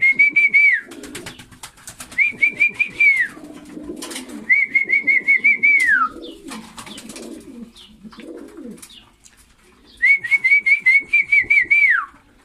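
A person whistling a rapid warbling call four times, each burst ending in a falling glide: a pigeon fancier's call to bring the birds in to feed. Between the whistles, pigeons coo and sharp clicks come from birds pecking at the grain feeders.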